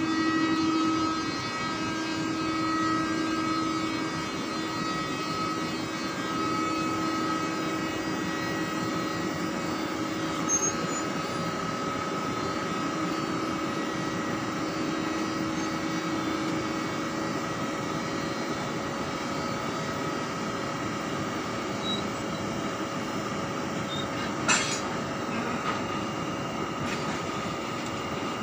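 EP20 electric locomotive creeping slowly up to the passenger coaches, its traction and cooling equipment giving a steady hum with several held whining tones that fade about two-thirds of the way through. Near the end comes a single sharp metallic clank as its automatic coupler meets the coach's, then a fainter knock a couple of seconds later.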